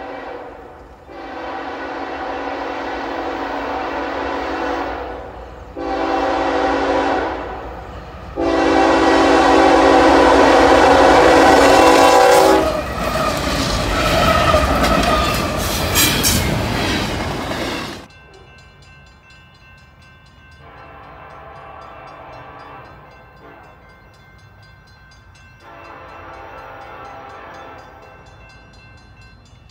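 Diesel locomotive horn at close range, finishing the grade-crossing signal: a long blast, a short one and a final long one as the train reaches the crossing. The lead locomotives then pass with loud engine rumble and wheel clatter. After about 18 s the sound cuts to a quieter scene, where a distant locomotive horn sounds twice.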